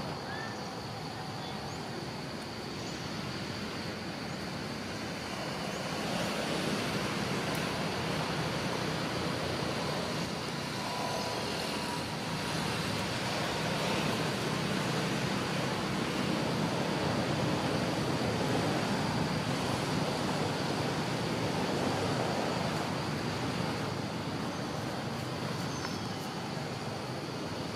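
Steady outdoor background noise: a distant traffic rumble with a thin, even high hum over it, rising a little about six seconds in.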